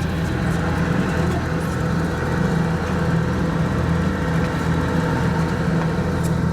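Boat engine running steadily at low revs, a deep drone with a slow, regular pulsing beat.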